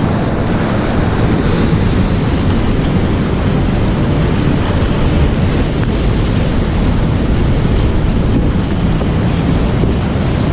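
Whitewater rushing and splashing close around a kayak as it runs a river rapid, a loud steady churn with wind buffeting the paddler's camera microphone.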